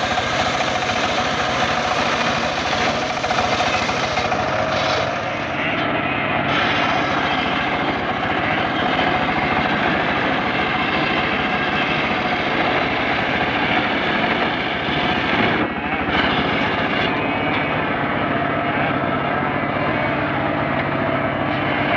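Engine-driven homemade circular sawmill running steadily, its blade cutting through a mahogany log in the first part and then spinning free under the engine's drone.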